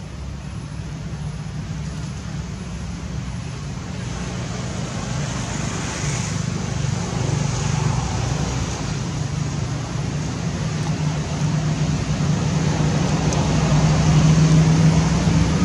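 Low, steady hum of motor-vehicle engine noise, growing gradually louder.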